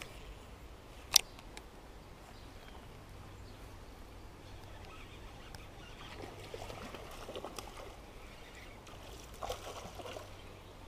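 Faint trickle of a small trout stream, with one sharp click about a second in and a soft splash near the end as a lure lands in the water.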